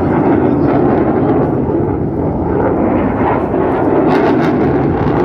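Loud, steady jet aircraft engine noise from an air show flight display, a dense rumble with some crackle about four seconds in.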